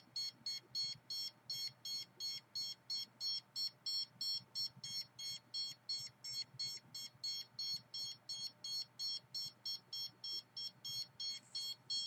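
Handheld RF/EMF meter beeping in a fast, even series of high-pitched electronic beeps, about three to four a second, as it is pointed at the person holding it.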